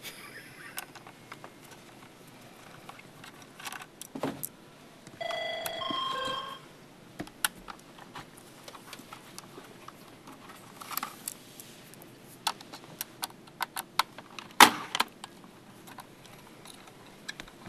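Scattered small clicks and clinks of a screwdriver and plastic parts as an XO laptop's screen assembly is worked apart, with a sharper click near fifteen seconds in. A brief steady tone of a few notes sounds about five seconds in.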